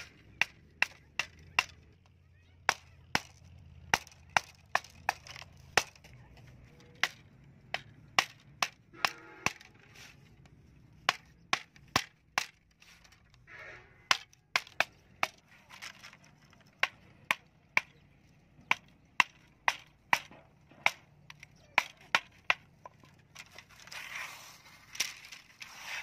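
Wooden mallet knocking a small blade into bamboo canes, sharp separate blows about one to two a second.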